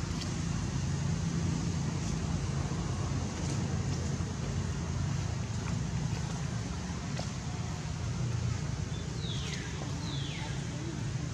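Steady low outdoor rumble, like distant traffic, with two short high squeals falling in pitch about nine and ten seconds in, the cries of a baby macaque.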